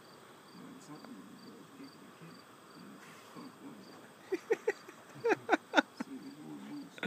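Faint high insect chirping, a small tick repeating about two to three times a second, over a quiet outdoor background. About four seconds in comes a run of half a dozen short, loud, pitched sounds.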